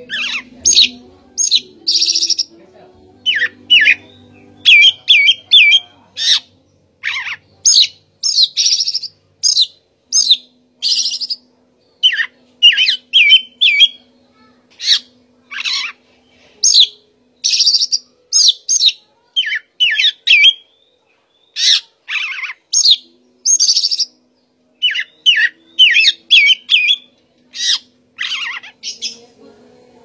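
Oriental magpie-robin (Copsychus saularis) singing: a loud, continuous run of short, varied whistled and harsh phrases, each lasting under a second, separated by brief pauses.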